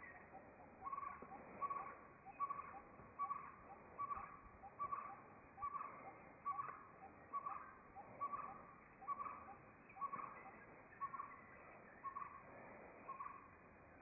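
Great hornbill calling: a steady series of about sixteen short, loud calls, a little more than one a second, stopping shortly before the end. Fainter short notes can be heard in the first half.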